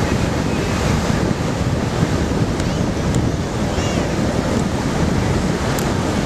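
Ocean surf breaking on a beach, a steady rush of waves, with wind buffeting the microphone.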